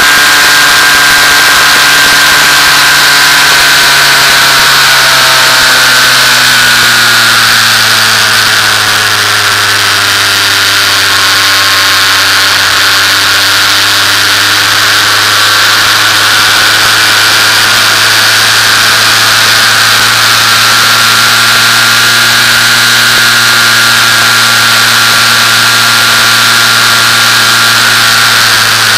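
Onboard sound of a Formula 2000 race car's engine running on track, its pitch falling over the first several seconds and then holding fairly steady, over a steady hiss. An elusive glitch limits the engine to about 5000 rpm, so it never revs out.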